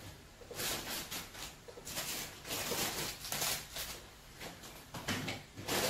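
Plastic shopping bag rustling and crinkling in irregular bursts as it is rummaged through.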